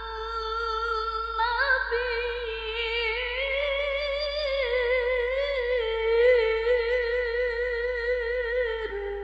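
A woman's voice in melodic Qur'an recitation (tilawah), holding one long, high note ornamented with a quivering vibrato and small turns in pitch. The note breaks off about nine seconds in.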